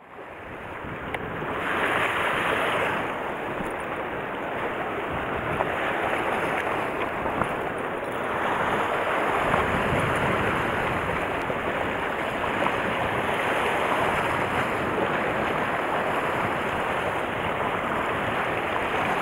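Sea waves washing against a rocky shore, with wind buffeting the microphone.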